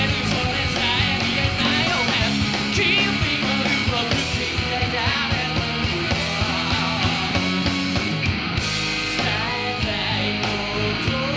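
A three-piece rock band playing a punk-style rock song live, with guitar, bass and a steady drum beat.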